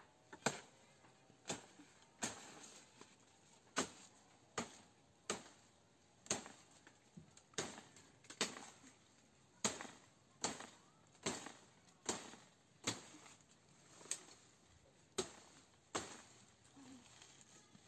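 Woody branches being chopped in brush: about twenty sharp cracks, one roughly every second, some louder than others.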